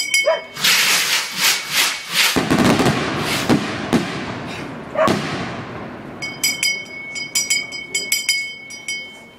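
Fireworks going off: a string of sharp bangs over the first five seconds or so, the loudest about two and a half seconds in, each trailing off in an echo. Then a bell is rung rapidly for a few seconds near the end.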